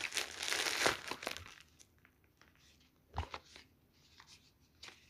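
Packaging crinkling and tearing for about a second and a half as an order is opened. It is followed by a few light knocks and clicks as cardboard product boxes are handled.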